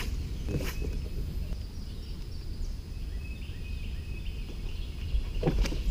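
Steady low rumble of outdoor background noise, with faint high chirping calls around the middle and short clicks near the start and near the end.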